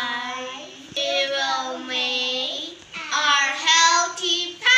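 Young children singing a song, holding long notes with gliding pitch, with short breaks about a second in and about three seconds in.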